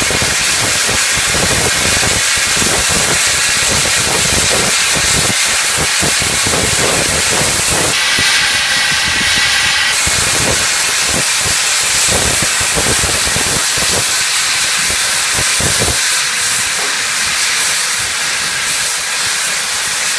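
NSWGR 36 class steam locomotive 3642 blowing off steam at its safety valves: a loud, steady hiss. A shriller note rides on the hiss for about two seconds near the middle, and irregular low rumbling underneath dies away about three-quarters of the way through.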